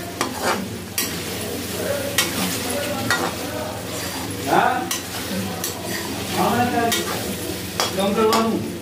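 Diced potatoes and tomatoes with cumin and green chillies sizzling as they fry in hot oil in a steel kadhai. A perforated metal spatula stirs them, scraping and clicking against the pan many times.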